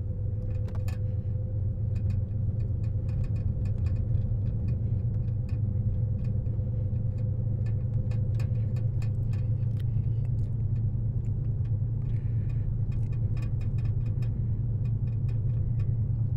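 Cabin noise of a car driving slowly on a narrow paved road: a steady low rumble from the engine and tyres, with scattered light clicks and rattles.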